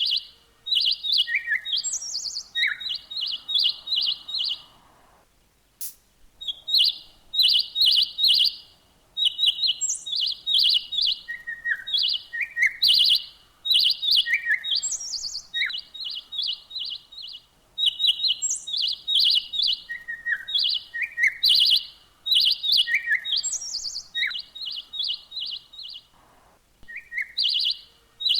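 A songbird chirping in quick runs of short, high notes, phrase after phrase, with brief pauses about five seconds in and again near the end.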